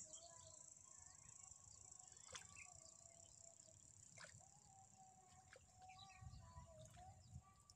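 Near silence: faint outdoor ambience with a steady high insect drone, a few faint bird chirps and occasional small clicks.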